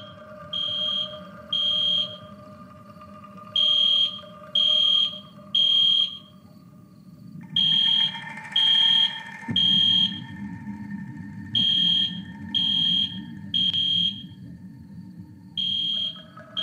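Fire alarm sounding high, piercing beeps in groups of three with a pause between groups: the temporal-three evacuation signal. A low, steady drone runs underneath.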